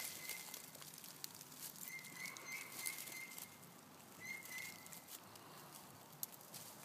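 Faint light rustling and small clicks in dry leaf litter, from a cat handling its prey, with a thin high whistle held at one pitch twice: a long one about two seconds in and a short one just after four seconds.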